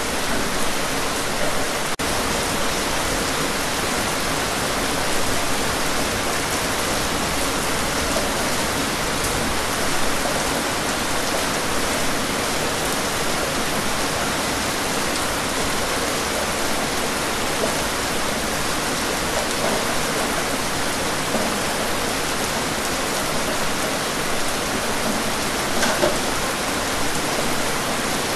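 Steady rain: an even hiss with the odd louder drop standing out now and then.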